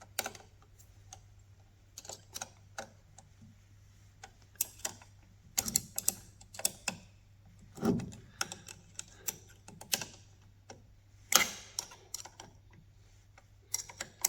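Irregular metallic clicks and clinks of a hand tool working on nuts and bolts as they are tightened, some strikes coming in quick clusters.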